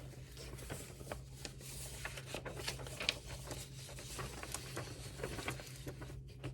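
Pen scratching on paper in a run of quick irregular strokes, with a steady low room hum beneath.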